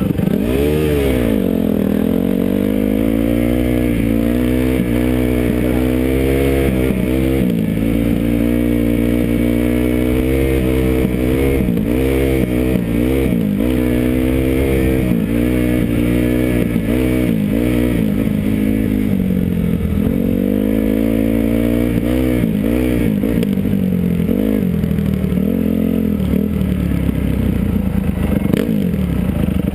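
250 motocross bike's engine heard from the rider's helmet, revving up and easing off again and again as it is ridden slowly, its pitch rising and falling every second or two.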